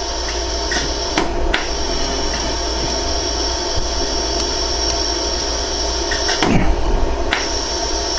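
Jewellery laser welding machine running with a steady hum, firing single sharp click-like pulses at irregular intervals as it welds material onto a gold ring.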